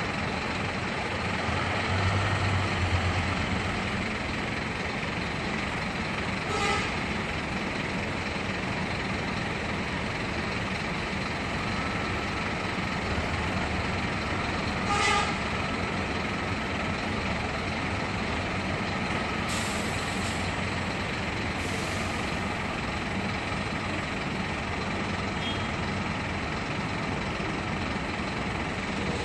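Marcopolo intercity coach's diesel engine running as the bus moves off slowly and turns, with a low rise in engine note about two seconds in. Two short toots come about seven and fifteen seconds in.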